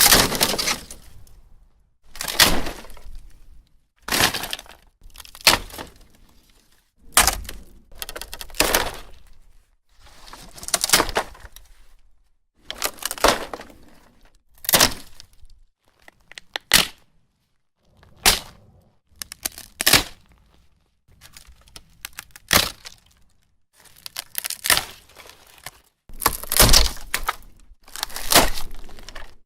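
An old wooden fence panel being broken apart: a series of separate sharp cracks, snaps and splintering crunches of dry wood, one every second or two.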